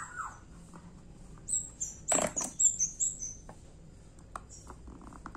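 A run of short, high-pitched chirps from a small animal, lasting about a second and a half from around a second and a half in, with a short louder burst in the middle and a few faint clicks near the end.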